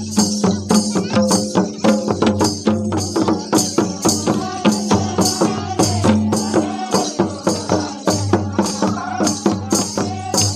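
Santali folk drumming: several tumdak' barrel drums are played in a fast, steady dance rhythm, with a bright rattling jingle on each beat. Voices sing along over a steady low hum.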